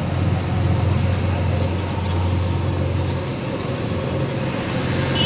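Steady low engine hum from heavy machinery, easing off about three seconds in, over a background noise haze.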